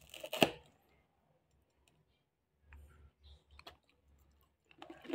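Knife and fork clicking and scraping on a plate as a piece of crispy fried suman is cut. The loudest clicks come in the first half second, then a few softer clicks after a pause.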